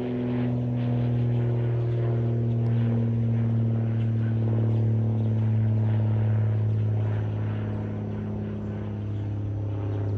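Large multi-engine piston propeller aircraft flying overhead: a deep, steady drone of its engines, the pitch sinking slowly as it draws away.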